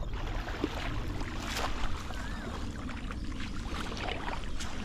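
Water sloshing and splashing, with a few brief splashes standing out, as a fishing net is worked in shallow water.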